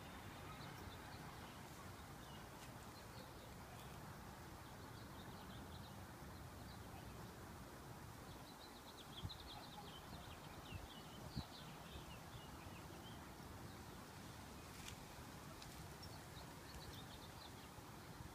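Near silence: a faint outdoor background with scattered, faint high bird chirps through the middle and a couple of soft clicks.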